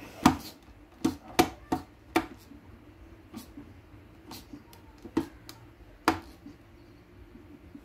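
Hand screwdriver working a small screw into a Land Rover Series metal door top, giving a string of sharp, irregular clicks and taps, thickest in the first two and a half seconds and with two more near five and six seconds in.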